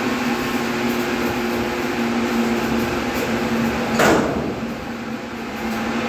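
Steady mechanical hum with a few held low tones, and one loud knock about four seconds in.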